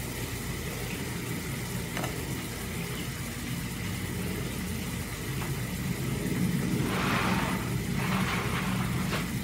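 Onion, garlic and curry leaves frying gently in oil in a stainless steel saucepan over a gas burner, with the onions just starting to brown: a steady low rumble with light sizzling that swells twice near the end.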